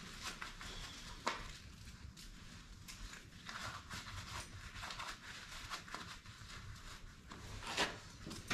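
Faint scattered clicks, light knocks and rustling from an air impact wrench and a puller being handled, with a sharper click about a second in and another near the end. The impact wrench is not hammering.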